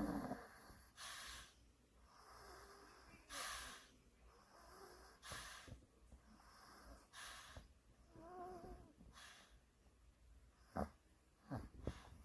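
A sleeping pet snoring quietly, one breath about every two seconds, with a short whistling wheeze on one breath and a few sharp snorts near the end.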